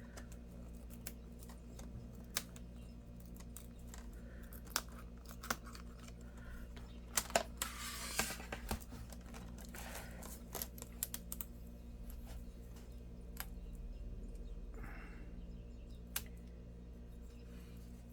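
Scattered light clicks and ticks, with a short scrape about eight seconds in, from a plastic pry tool working around the edge of a laptop's screen and bezel, prying apart the adhesive. A steady low hum runs underneath.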